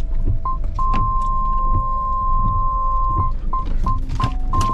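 Camper van driving slowly on a wet lane in rain: a steady low rumble with scattered knocks and taps from rain and the sweeping windscreen wipers. Over it, a few steady high tones hold, break off and start again.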